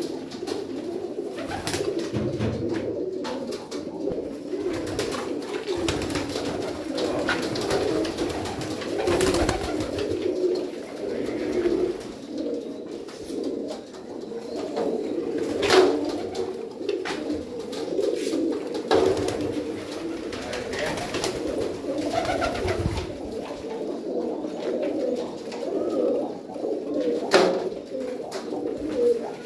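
A flock of domestic high-flying pigeons cooing together in a wire-mesh loft: a steady, overlapping chorus of low coos. A few sharp clicks sound now and then, the clearest about midway and near the end.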